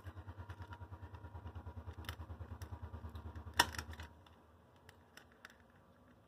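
Small plastic clicks from a Tyco GP20 HO-scale model locomotive being worked apart by hand, including one sharp click a little before four seconds in. Under them, a low, fast, even pulsing of about ten beats a second stops about four seconds in.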